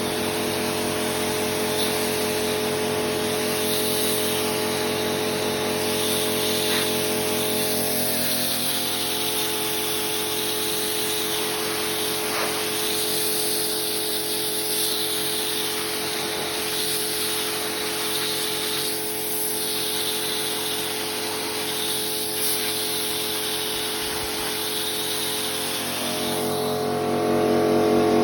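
Karcher K4 electric pressure washer running: a steady motor-and-pump hum under the hiss of water spraying from the lance. It gets louder, with a change in its pitch, near the end.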